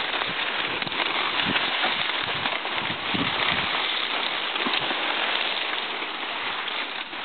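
Continuous crackling rustle of palmetto fronds and clothing brushing close to the microphone.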